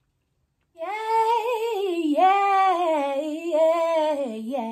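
A woman singing a wordless, drawn-out melodic run with vibrato, starting about a second in. It is her sung reaction to the taste of the food, the sound she would put to the flavour.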